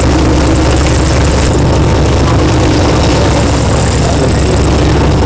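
Boat engine running steadily with a loud, low drone.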